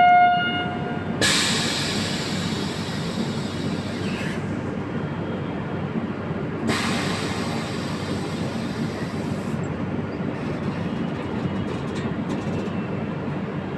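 The end of a one-note horn blast from a WAP-7 electric locomotive, stopping within the first second, followed by the steady rumble of the running train. A loud hiss comes in about a second in and again about seven seconds in, each lasting about three seconds.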